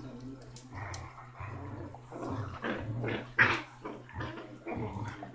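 Six-week-old basset hound puppy growling in a string of short growls, loudest about three and a half seconds in.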